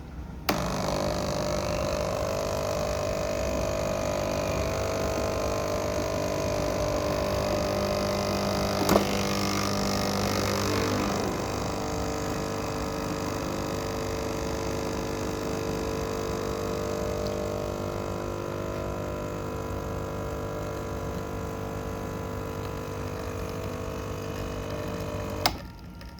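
Home espresso machine's pump running through a shot: a steady hum that switches on with a click about half a second in and cuts off with a click near the end. There is a sharp knock about nine seconds in, and the hum's tone shifts slightly a couple of seconds later.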